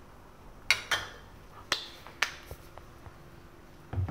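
Kitchen utensils and dishes clinking and knocking while sauces are measured out: about five sharp clinks with a short ring in the first two and a half seconds, a few fainter ticks, then a dull thump near the end.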